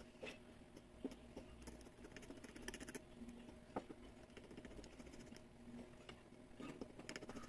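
Faint, irregular clicking and scraping of a metal fork stirring egg, flour and milk into a batter in a glass bowl.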